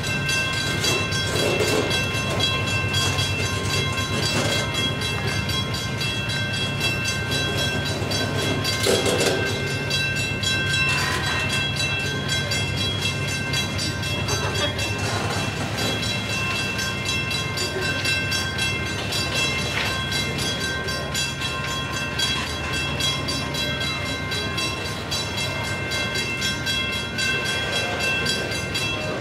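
Loaded coal gondolas rolling slowly past at a crawl on an uphill grade: a steady rumble of steel wheels on rail with a thin high-pitched ringing, and occasional clanks and knocks, the loudest about nine seconds in.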